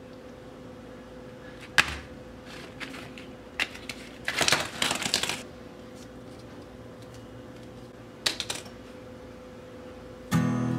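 Tealight candles handled and set down on a wooden benchtop: scattered sharp clicks and clatters, with a dense run of them in the middle, over a steady faint hum. Acoustic guitar strumming starts just before the end.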